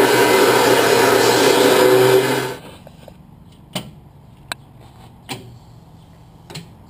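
Handheld angle grinder running against the steel edge of a car trailer's diamond-plate deck, grinding the metal before welding. It cuts off about two and a half seconds in, followed by a few sharp clicks.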